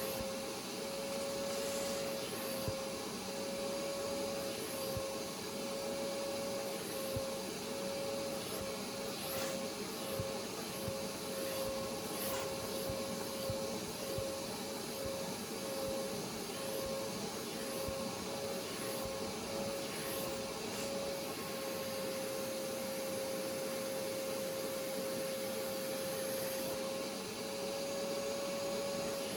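Hoover pet stain carpet cleaning machine running with a steady suction-motor whine. The whine wavers in level for a stretch in the middle, then holds steady.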